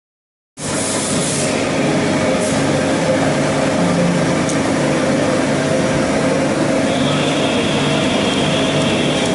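Haas TL-15 CNC lathe running: a steady mechanical hum made of several low tones, starting suddenly about half a second in. A high steady whine joins about seven seconds in.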